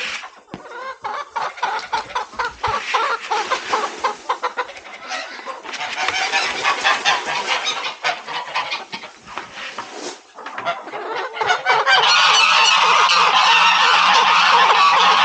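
A flock of domestic geese honking: rapid, overlapping honks at first, then about twelve seconds in the calling turns much louder and continuous as the whole flock honks at once.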